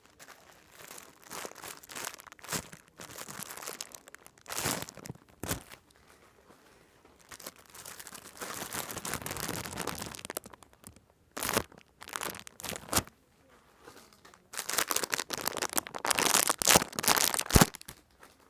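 Plastic packaging crinkling and rustling as it is handled, in irregular bursts with short pauses, the longest and loudest stretch near the end.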